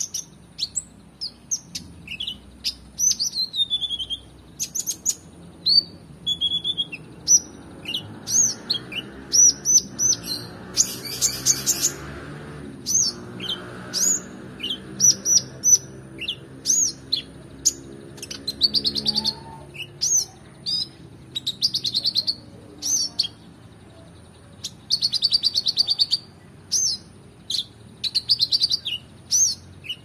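Caged male konin (kolibri ninja) sunbird singing a fast, unbroken string of high chirps, rapid trills and short downslurred notes, a song filled with phrases copied from other songbirds.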